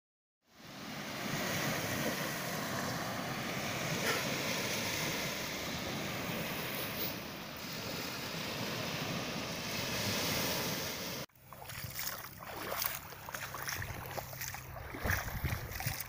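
Small sea waves washing onto a sandy shore, with wind noise on the phone's microphone, starting about half a second in. After a cut about eleven seconds in, the sound turns uneven: wind buffeting the microphone and shallow water lapping around wading feet.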